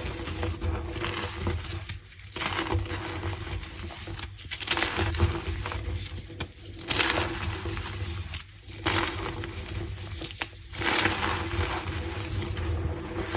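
Blocks of reformed gym chalk crushed in the hands, crumbling with a dense, squeaky crunch. The crushing comes in about six squeezes of roughly two seconds each, with short breaks between them.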